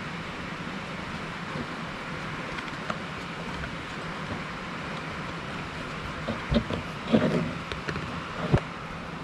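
Rubber V-belt being worked by hand over the plastic fan blades of an excavator's engine, which is not running. In the second half there are a few short knocks and rubs, over a steady background hiss.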